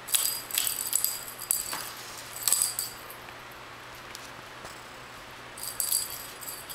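A small jingle-bell toy ball hanging from a wire arch rattles and jingles in short bursts as a kitten bats and pulls at it: several jingles in the first three seconds, a pause, then another flurry near the end.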